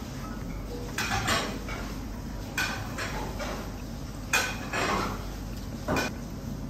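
Dishes and cutlery clinking and clattering, about half a dozen short knocks spread through, over a steady low room hum.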